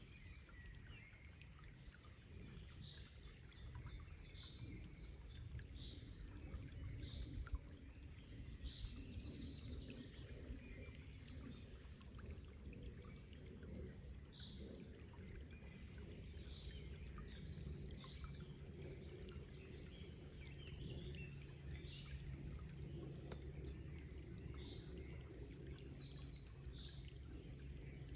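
Forest birds chirping: many short, scattered calls over a faint, steady low rush of a flowing stream.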